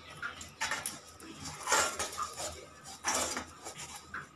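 Hand rubbing oil over a perforated stainless-steel steamer plate in a steel pan, with light clinks of the steel. There are three louder strokes about a second apart.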